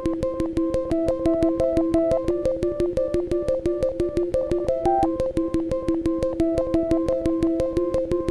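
Background music: a synthesizer repeating a fast run of short, even notes, about six a second.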